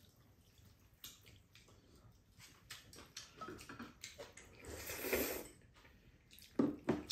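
Slurping and chewing of black-bean-sauce noodles: wet smacking and small clicks, a longer slurp about five seconds in, and two louder short slurps near the end.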